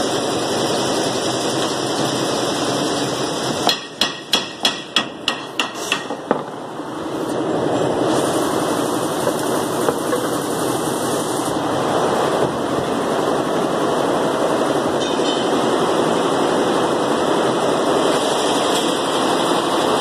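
Hammer striking metal: a quick run of about ten blows, about four a second, starting a little under four seconds in, each with a short ring. A steady background noise runs under them.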